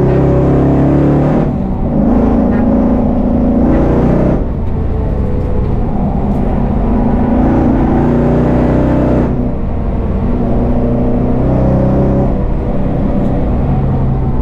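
Engine of a 1000 hp VF Commodore race car running hard on track, heard from inside the car. It lifts briefly about a second and a half in, about four seconds in and about nine seconds in, then pulls again. The exhaust is loud enough to break the track's 95 dB noise limit.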